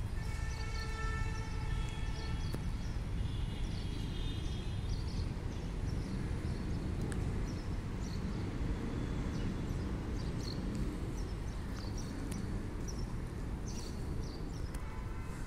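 Outdoor park ambience: a steady wind rumble on the microphone, with birds chirping in short, repeated high calls throughout. A held pitched tone with several overtones sounds for about the first two seconds.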